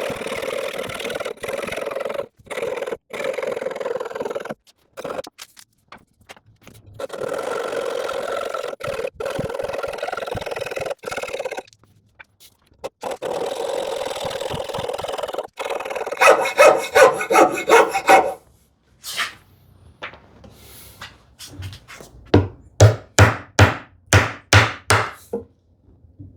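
Hand tools working wood: long stretches of steady rubbing and scraping, then two runs of quick, evenly spaced sawing strokes.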